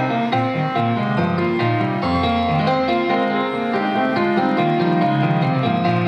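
Petrof grand piano playing a flowing, many-note accompaniment passage, with a deep bass note struck about two seconds in.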